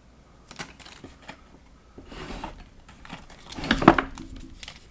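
Small metal tools and parts being handled on a workbench: scattered light clicks and taps, a brief rustle, and a louder clatter about three and a half seconds in.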